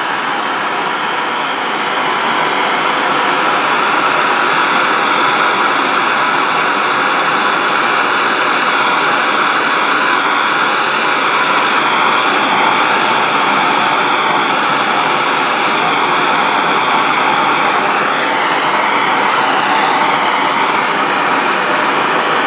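MAP gas torch burning with a steady hiss, its flame heating a tube to melt solder into a brush-stem joint. It grows a little louder about two seconds in.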